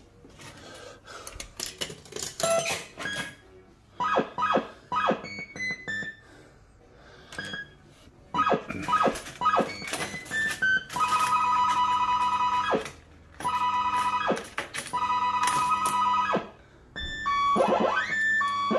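Bell-Fruit Two Step fruit machine playing its electronic sound effects, nice and loud with its back door open. First come short rising and falling bleeps mixed with clicks. Then come three long two-note tones, each held for a second or two, with more tones starting near the end.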